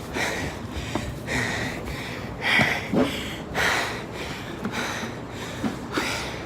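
A man breathing hard and rhythmically, about one breath a second, from the exertion of climbing a long flight of steps.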